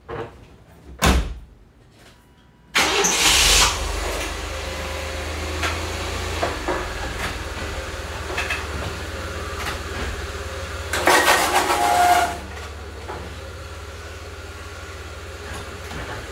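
Truck door shut about a second in, then the GMC Sonoma pickup's engine is started about three seconds in and runs at idle. Around eleven seconds it gets louder for about a second as the truck is driven at plastic ramps and pushes them scraping across the concrete floor instead of climbing them.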